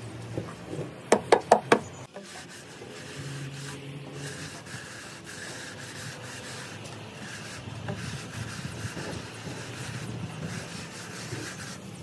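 A wooden straightedge is rubbed and scraped across wet cement plaster on a brick wall to level the surface, a continuous gritty scraping. About a second in there is a quick run of four sharp knocks.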